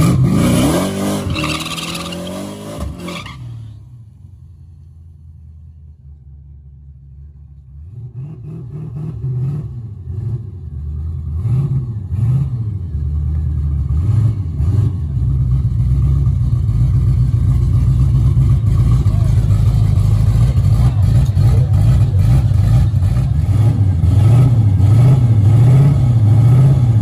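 Ford Mustang SVT Cobra's V8 revving, climbing in pitch for the first few seconds. After a short quiet spell it runs again, building louder, with its pitch swinging up and down in quick repeated blips.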